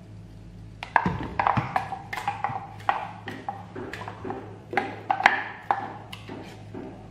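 Irregular knocks and scrapes of a utensil against a plastic mixer-grinder jar as thick ground masala paste is emptied out of it, starting about a second in.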